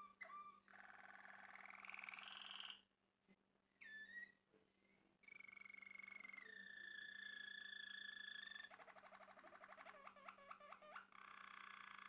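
Male Malinois Waterslager canary singing: a rolling trill that rises in pitch, then after a short pause a quick downward-gliding note, then a long held whistled note that drops a step partway through, and fast bubbling notes near the end.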